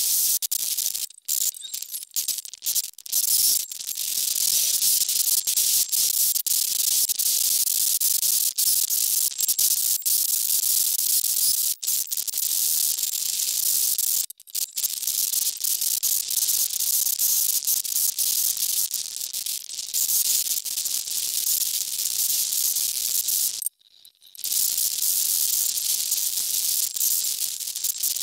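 Small DC motor with an abrasive cut-off disc grinding through a thin metal strip: a steady high hiss. It starts and stops several times in the first few seconds, then breaks off briefly twice, about halfway and near the end.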